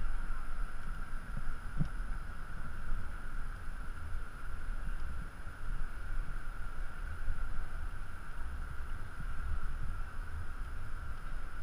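Wind buffeting a body-worn action camera's microphone during a rappel down a tall building face: an uneven, gusting low rumble over a steady hiss.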